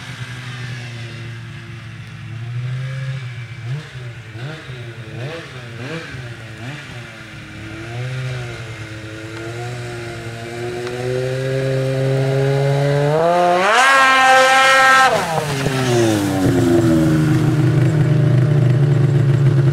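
Polaris 800 RMK snowmobile's two-stroke twin with an MBRP aftermarket exhaust, running slowly with a string of short throttle blips. It then revs up steadily to a brief high peak about two-thirds of the way through, drops back quickly, and settles into a steadier, lower run near the end.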